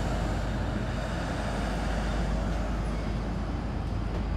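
Diesel-hauled heritage train pulling away from the station: a steady rumble of the locomotive and the rolling carriages.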